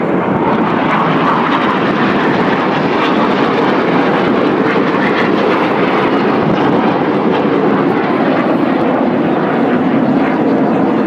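Jet engines of display jets flying past in formation trailing coloured smoke: a loud, steady rushing noise.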